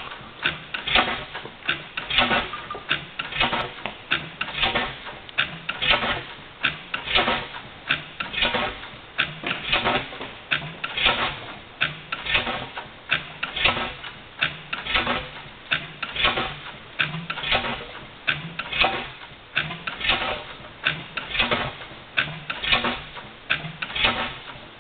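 A 6 HP Reid stationary gas engine running steadily, its flywheels turning. It gives a regular mechanical clatter, with a louder beat about once a second and lighter clicks between.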